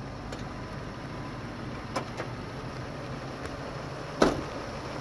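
Ford F-250 Super Duty pickup's engine idling steadily, with a couple of light clicks about two seconds in and one sharp knock near the end.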